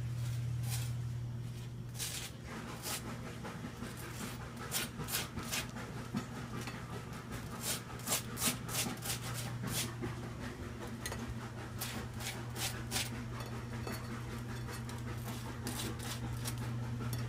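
Short soft rustles, a few a second, over a steady low hum; they thin out after about thirteen seconds.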